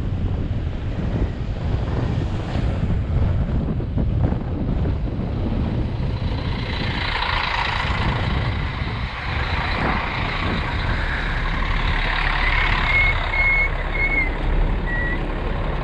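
Wind buffeting the microphone during a bicycle ride, with a road vehicle approaching and passing from about six seconds in. A few short high-pitched tones sound near the end.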